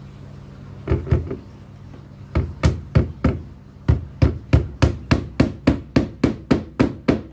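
Claw hammer striking upward into the top of a wooden door frame. A few blows come about a second in, then a steady run of sharp strikes that speeds up to about four a second.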